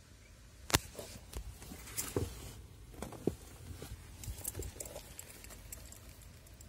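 Scattered clicks, knocks and rubbing of a handheld phone being moved about, the sharpest click a little under a second in.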